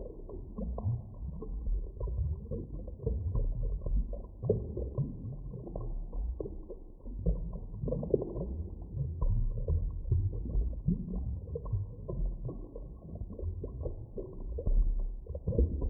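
Muffled underwater ambience: a dense low rumble with many short, irregular pops, with nothing above about 1 kHz.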